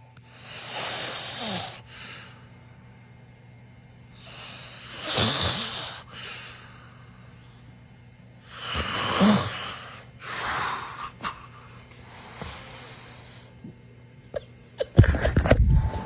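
Someone snoring: long, noisy breaths every few seconds, some with a low rattle. Several loud knocks come near the end.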